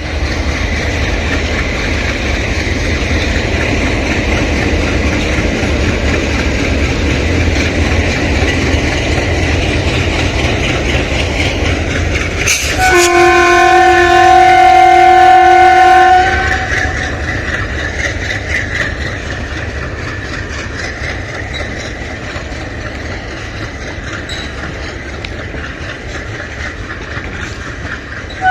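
ALCO diesel locomotive chugging steadily as it departs. About halfway through it sounds a single horn blast of several tones together, lasting about three and a half seconds and louder than anything else. After that the engine sound is lower.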